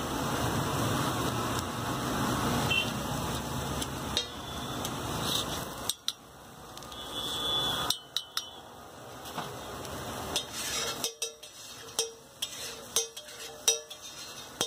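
Metal spatula working scrambled egg on a flat metal griddle. For the first six seconds there is continuous scraping, which then drops away suddenly. From about eight seconds in come sharp metallic taps and clacks as the spatula edge chops and strikes the griddle.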